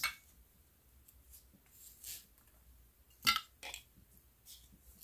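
Metal jar lids set down one by one on a cloth-covered table: a few light knocks, the loudest about three seconds in.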